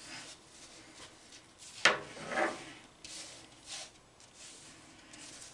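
Fingers rubbing and scraping lint off a clothes dryer's mesh lint screen: a series of short, scratchy rustles, the sharpest about two seconds in.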